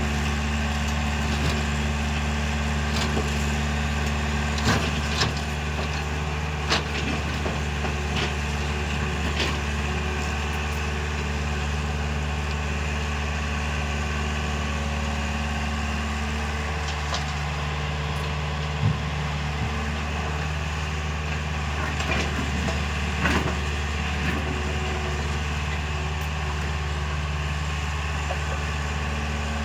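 Tracked excavator's diesel engine running steadily under hydraulic work as it digs and loads broken rock, with a few sharp knocks of rock striking steel.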